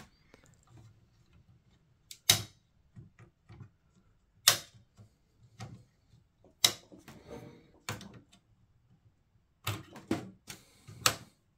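Sharp clicks and taps from handling the motherboard's CPU socket by hand and with a screwdriver: about seven separate clicks, irregularly spaced, with three coming close together near the end.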